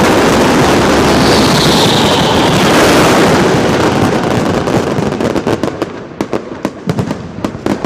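Fireworks display: a dense, continuous barrage of bursts and crackle with a brief whistle in it, thinning after about five seconds to scattered sharp cracks as the barrage tapers off.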